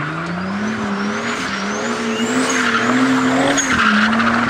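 BMW E30 coupe drifting in circles, its engine held high in the revs with the note wavering up and down as the throttle is worked. The rear tyres squeal in a warbling screech over it.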